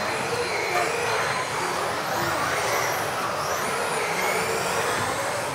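Several electric RC off-road buggies racing together: a cluster of high-pitched motor whines gliding up and down as the cars accelerate and brake, over a steady hiss, echoing in the large hall.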